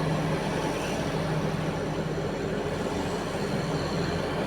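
Heavy mining machinery running: a steady diesel engine drone from a large excavator and haul truck at work.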